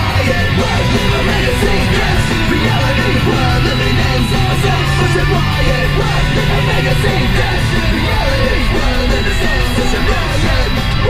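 Rock music with guitar playing at a loud, steady level.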